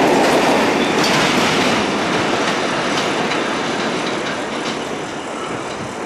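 New York City Subway 7 express train of R188 cars pulling out of an elevated station, its running noise and wheel clatter over the rail joints gradually fading as it moves away.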